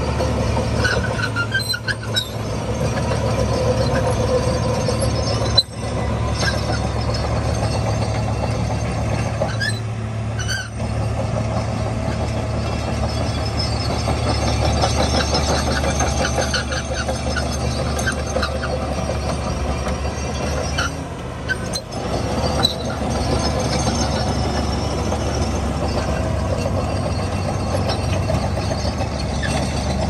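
Crawler bulldozer's diesel engine running steadily under load as it pushes sand, with occasional high squeals from the tracks.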